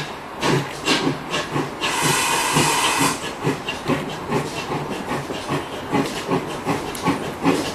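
Two GWR pannier tank steam locomotives double-heading a train as it pulls away, their exhausts chuffing about three to four beats a second, slightly out of step with each other. About two seconds in, a loud hiss of steam lasts for about a second.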